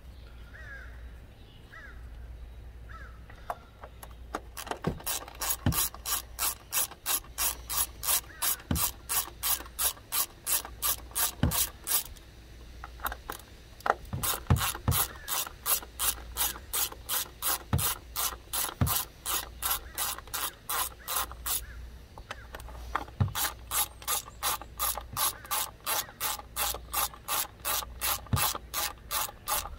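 Hand ratchet with a 10 mm socket on an extension clicking rapidly as it backs out the coil-pack hold-down bolts, about four or five clicks a second. The clicking starts about four seconds in and comes in three runs with brief pauses between them.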